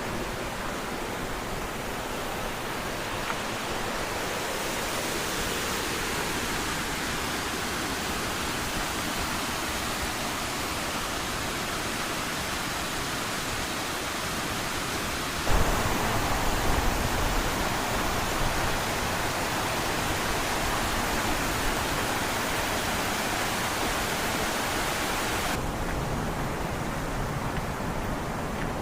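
Rushing water of a waterfall cascade, a steady wash of noise. The sound changes abruptly a few times: it gets louder and deeper about halfway through and loses its hiss near the end.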